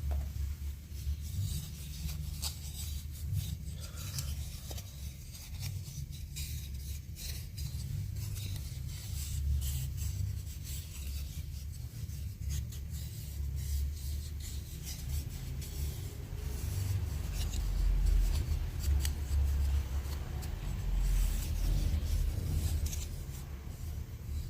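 Hand rubbing and scraping on the wooden spoon: irregular scratchy strokes against wood, with no power tool running.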